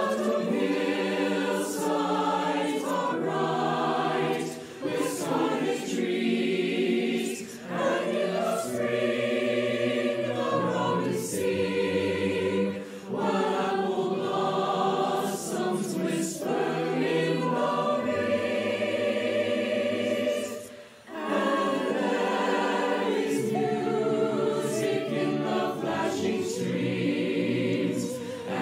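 A mixed choir of men's and women's voices singing a slow song in harmony, mixed from home recordings of each singer. The singing comes in long held phrases, with short breaks between them; the deepest break is about 21 seconds in.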